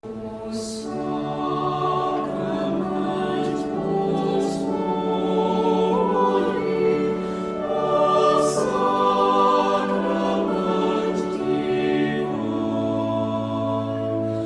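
Choral music: a choir singing slow, long-held chords that change every second or two.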